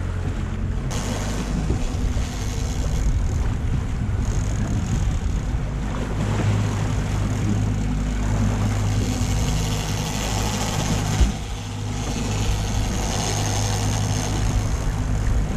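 Outboard motor running steadily as the boat moves, with water rushing and splashing in the wake. A single sharp knock about eleven seconds in.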